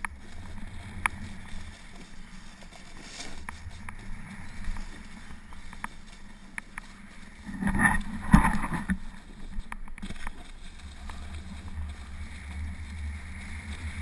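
Skis hissing and scraping over snow while skiing downhill, with wind rushing over the pole-mounted camera's microphone and scattered clicks. About eight seconds in a louder burst of rushing noise passes.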